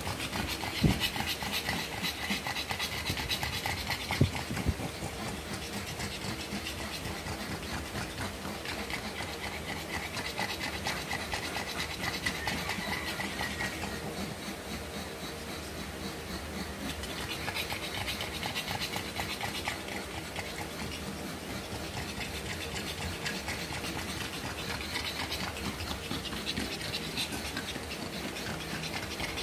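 Pug bitch in labour panting fast and steadily while resting between puppies, with two soft knocks in the first few seconds.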